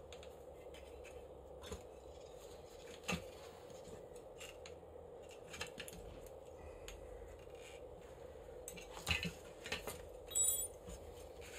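Small metal parts clicking and clinking as the top mount of a coil-spring strut is taken apart by hand, with a few light knocks. About nine seconds in comes a short cluster of louder metallic clinks with a brief ring, as parts are set down on the concrete floor.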